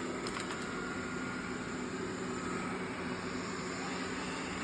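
Xiaomi Robot Vacuum S10+ running in its regular suction mode: a steady, even motor whir and hum.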